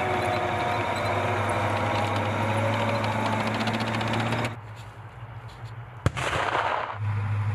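Toy battle tank's electronic sound effect: rapid machine-gun fire over a steady low rumble. It stops about four and a half seconds in and starts again near the end.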